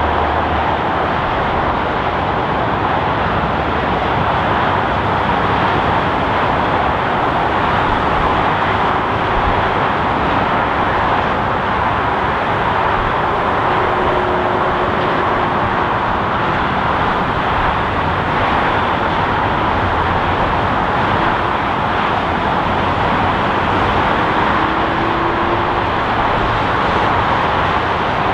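A steady, even rush of jet aircraft engine noise with no rise or fall in level.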